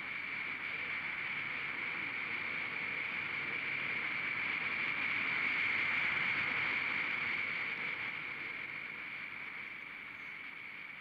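Aérotrain hover train's turbine propulsion unit passing at speed: a high steady whine over a rush of air that grows louder, peaks about halfway through, then fades away.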